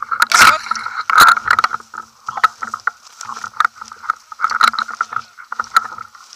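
Footsteps through tall grass, with the grass swishing and brushing against a rifle-mounted action camera, a loud rustling hit about once a second.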